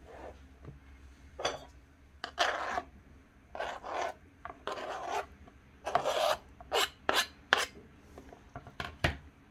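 Knife blade scraping diced avocado off a plastic cutting board into a salad bowl: about ten short scrapes at irregular intervals.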